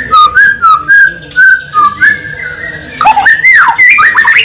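A bird whistling: a run of short notes stepping back and forth between two pitches, then several quick swooping calls in the last second and a half.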